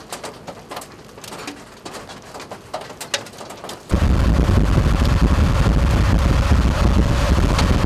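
Scattered sharp ticks of rain striking, then about four seconds in a sudden switch to loud, steady storm wind rushing over the microphone with rain, heavy in the low range.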